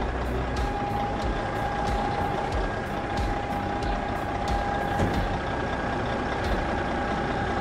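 Truck sound: a steady noisy engine hum with a high steady whine over it, and faint regular ticks about three times a second.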